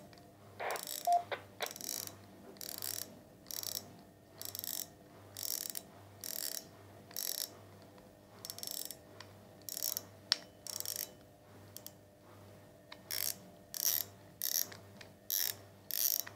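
Air rifle scope's adjustment turret being turned with a flat-blade screwdriver: a run of short scratchy clicks, about one to two a second, with a pause of about two seconds just after the middle.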